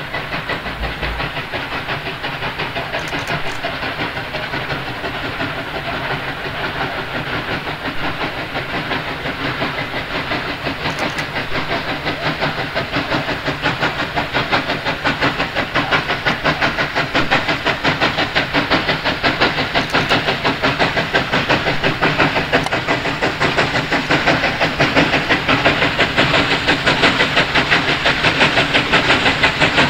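Victorian Railways K class 2-8-0 steam locomotive working hard at the head of a passenger train, its exhaust beating in a fast, regular rhythm with steam hiss. The beats grow steadily louder as it approaches.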